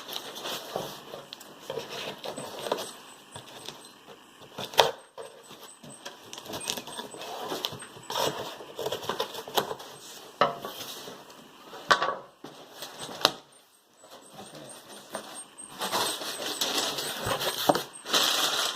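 A cardboard shipping box being opened and unpacked by hand: scattered knocks, taps and scrapes on the cardboard, then a longer stretch of paper rustling near the end as the wrapping paper is reached.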